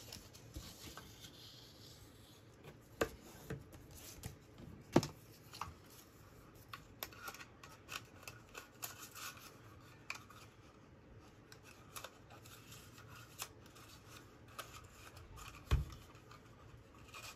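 Paper being handled with craft tools: a bone folder rubbing along a folded paper strip, then a lever-action paper punch being handled and pressed. Scattered sharp clicks and knocks, the loudest about five seconds in, with a dull thump near the end.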